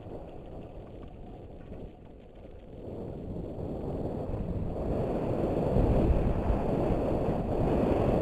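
Wind buffeting the GoPro's microphone during a fast downhill mountain bike descent, a low rumbling noise. It dips about two seconds in, then grows steadily louder from about three seconds on.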